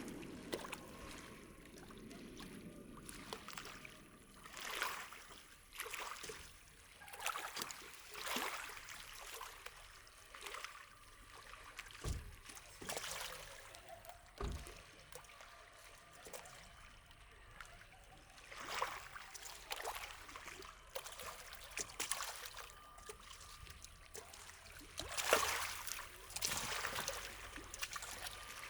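Small waves lapping and splashing softly at the water's edge, a gentle swish about every one to two seconds, with two short dull thumps near the middle.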